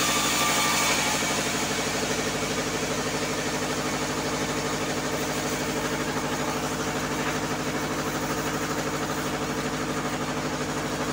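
Band sawmill running steadily, a continuous machine drone with a low hum. A higher whine of the blade in the wood stops about a second in, and the saw runs on without load.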